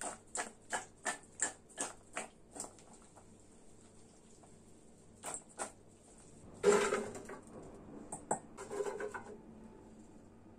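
Raw potato sticks tossed in a stainless steel bowl, knocking against the metal about three times a second, then tipped into an air fryer basket in a loud rustling clatter about seven seconds in, with a shorter clatter about two seconds later.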